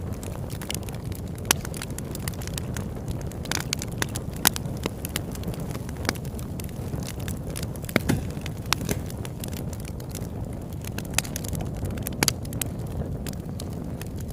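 Campfire burning: a steady low rush with frequent, irregular sharp crackles and pops from the burning wood, a few of them louder.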